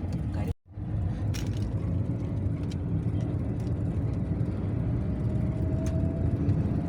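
Steady low road and engine rumble of a car driving, heard from inside the moving vehicle, with a brief cut to silence about half a second in.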